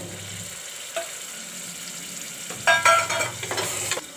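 Wet onion and ginger-garlic masala sizzling in an aluminium pressure cooker as a spatula stirs it, with a small knock about a second in and a louder stretch of the spatula scraping against the pot near the end.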